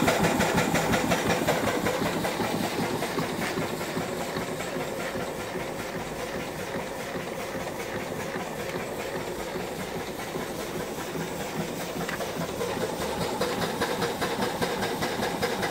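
Small horizontal steam engine running under steam: a rapid, even beat of exhaust chuffs going up the boiler stack, over a steady hiss of steam. It grows a little quieter over the first few seconds and louder again near the end.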